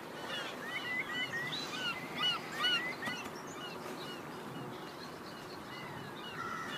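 Many birds calling over a steady outdoor hiss: a busy flurry of short, hooked chirps in the first three seconds, thinning to scattered calls after that.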